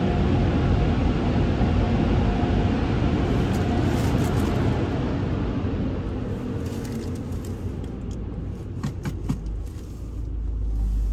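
Car wash air dryer blowers rushing loudly, the noise fading away over the second half. A few sharp clicks follow, then a low rumble rises near the end.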